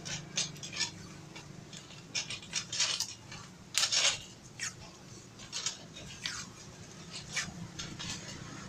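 Tape being pulled off the roll and wound around the handle of a home-made wire snake catcher, in short, irregular crackling rips, the longest about four seconds in.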